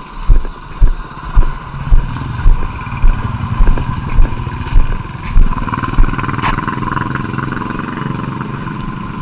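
Low thumps about twice a second, then from about five and a half seconds in a small engine running steadily.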